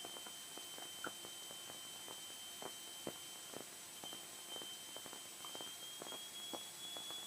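Faint electrical hiss from an aircraft intercom audio line between transmissions, with a thin steady high whine that rises slightly near the end and scattered small clicks and crackles. No engine is heard.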